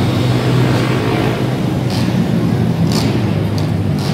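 Several pit bike and dirt bike engines running together, a steady, loud engine drone in a large indoor arena.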